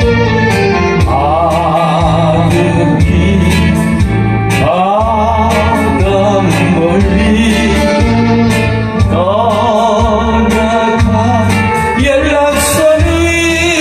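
A voice singing a Korean trot song with wide vibrato over a backing track with a steady bass beat, in three sung phrases with short breaks between them.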